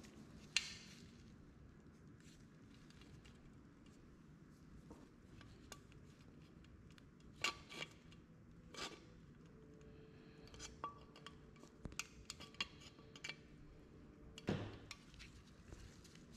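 Light metallic clicks and clinks of a pressed-steel toy truck cab being handled and its tabs worked with needle-nose pliers. There is a sharp click about half a second in and a quick run of small clicks in the second half.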